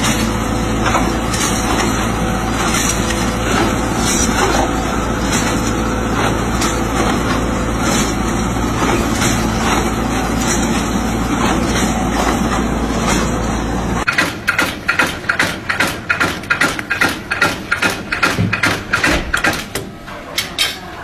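Heavy machinery running steadily with a constant low hum. About 14 seconds in it cuts to a different machine knocking rhythmically, about three knocks a second, growing quieter near the end.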